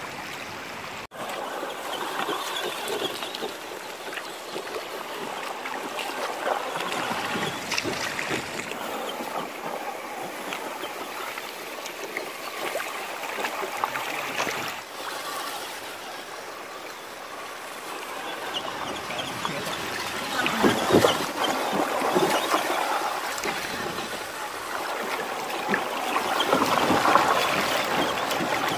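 Shallow river rushing over stones, with water splashing as a 1:10-scale RC rock crawler wades through the current. The splashing grows louder about two-thirds of the way in and again near the end.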